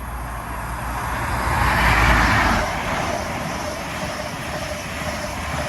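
A Class 43 high-speed train passing at speed: a diesel power car's engine hum under a broad rushing roar from the train. It swells to its loudest about two seconds in and stays loud as the coaches go by.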